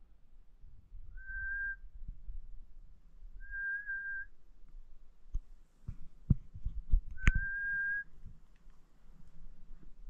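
A person whistling three short, level whistles, each under a second long, to make a moose stop and look up. Handling knocks and clicks come between the second and third whistles, the sharpest right as the third begins.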